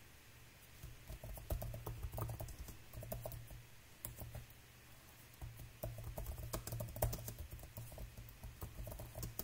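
Typing on a computer keyboard: quick runs of keystrokes, with a short pause about halfway through.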